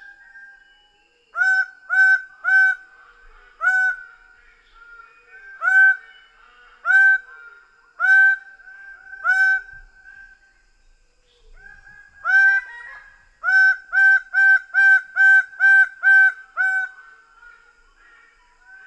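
Greater bird-of-paradise giving loud, honking calls in series: a few spaced calls, then about two thirds of the way in a quick run of about eight calls, roughly two a second. Fainter bird calls carry on between them.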